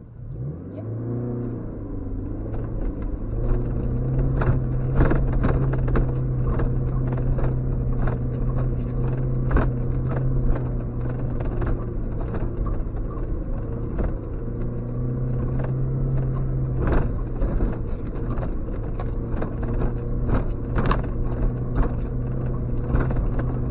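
Suzuki X-90's 1.6-litre four-cylinder engine picking up and pulling away about half a second in, then running steadily, heard from inside the cabin. Frequent irregular knocks and clatter from the car jolting over a rutted, muddy track.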